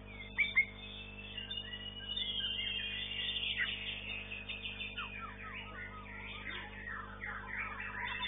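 White-rumped shamas (murai batu) singing in competition, several at once: a fast, varied run of whistles and chirps, with two sharp loud notes about half a second in.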